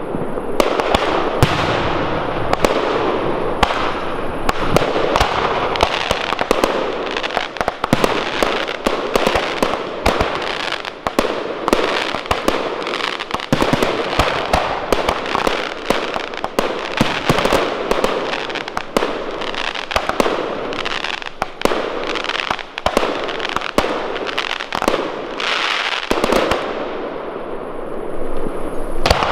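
Large fireworks display: a dense, near-continuous barrage of bangs, several a second, thinning out briefly near the end.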